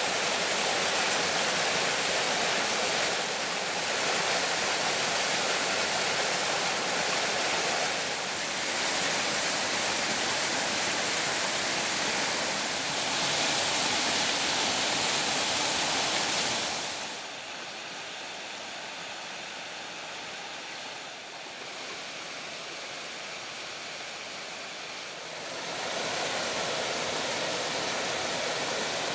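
Waterfalls rushing and splashing over mossy rock, a steady hiss of falling water. A bit past halfway it drops to a quieter, duller rush, then grows louder and brighter again near the end.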